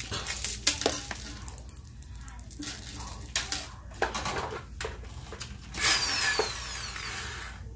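Crinkling of a small plastic packet of hinge screws being opened and handled, with light clicks of small screws and metal hardware being picked up and set down on the board, and a louder rustle about six seconds in.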